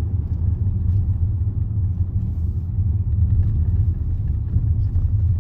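Steady low rumble of a Range Rover on the move, engine and tyre noise heard from inside the cabin.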